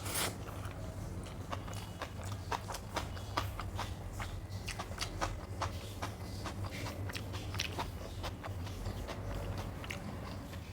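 Close-up wet chewing and biting sounds of a person eating rice, dal and omelette: many short, irregular mouth clicks and smacks, over a steady low hum.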